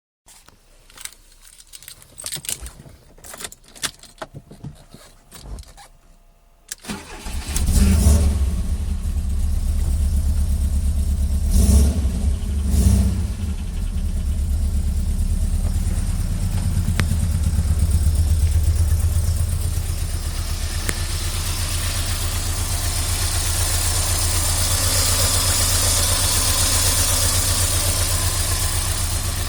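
Alfa Romeo 145's flat-four boxer engine starting about seven seconds in after a run of scattered clicks and knocks, then settling into a steady idle. Two brief surges follow a few seconds after the start.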